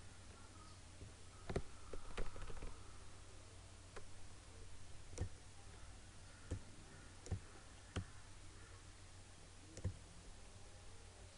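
Computer mouse buttons clicking: about nine short, sharp clicks at irregular intervals, over a steady low hum.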